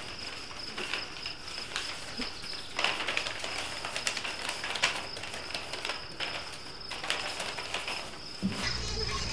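Rolled newspaper cone rustling as it is handled, with soft scattered crackles. A low sustained musical drone comes in near the end.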